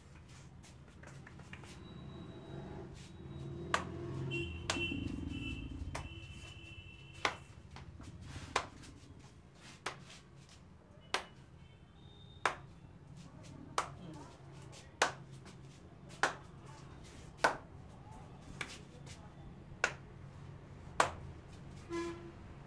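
Sharp hand strikes of a tapping-and-clapping head massage, about one every second and a quarter, starting about four seconds in.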